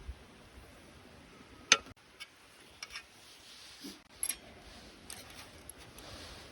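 A handful of sharp, irregular clicks and light taps over a faint steady hiss, one clearly louder than the rest about a second and a half in.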